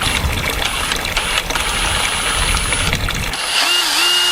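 A low rumbling noise, then a power drill starts near the end and runs at a steady pitch, dipping briefly once as it loads.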